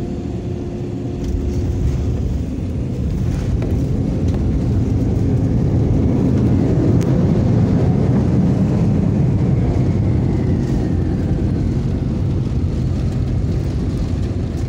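Jet airliner's landing rollout heard from inside the cabin: a deep engine rumble swells about a second in, as the engines spool up for reverse thrust. It then eases, with a falling whine as they wind down.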